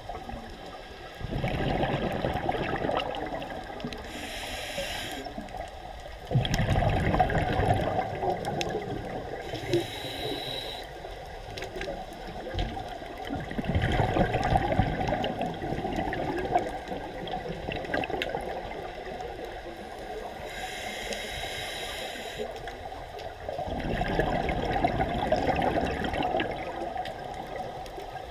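Scuba diver's regulator breathing underwater: four loud bursts of exhaled bubbles rumbling past, several seconds apart, with a fainter hiss between them.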